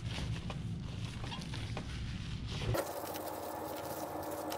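Paper towel rubbing and rustling over a glass decanter as it is wiped clean, with light scrapes and taps of the glass being handled. The low background hum drops out abruptly about three seconds in, leaving a faint steady whine.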